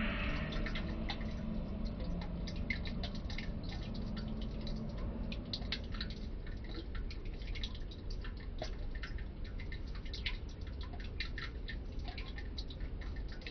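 Faint, irregular clicking and ticking, several small clicks a second at uneven spacing, over a low steady room hum.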